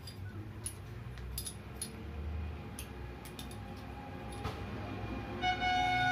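Light metallic clinks and taps of steel clutch parts, a Piaggio Ape diesel clutch hub with its pins, being handled and fitted by hand. About five and a half seconds in, a louder steady pitched tone begins and holds.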